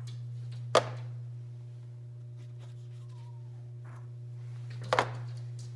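A steady low hum with a sharp tap a little under a second in and a quick double tap near the end.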